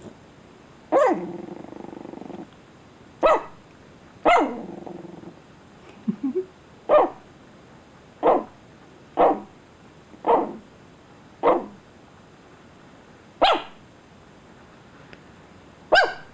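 A pet dog giving about eleven short barks, roughly one a second with some longer gaps, each dropping in pitch. A low growl trails the first and third barks.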